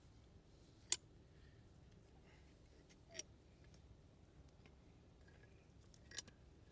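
Three short sharp clicks of a metal dental cutter being fitted onto a donkey's back molar, the first about a second in and the loudest, the others about three seconds in and near the end; otherwise near silence.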